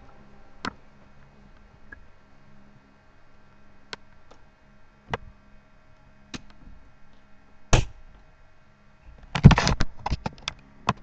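Scattered sharp clicks and knocks over a faint steady hum, with a louder thump about three-quarters through and a dense burst of knocking and rustling near the end.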